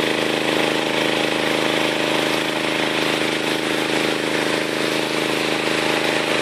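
WP 30 petrol water pump's 6.5 hp four-stroke engine running steadily while pumping water to an irrigation sprinkler.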